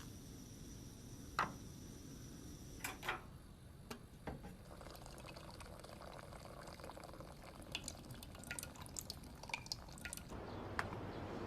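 Faint, scattered light clicks and ticks that sound like dripping water or liquid sounds, in a quiet small room.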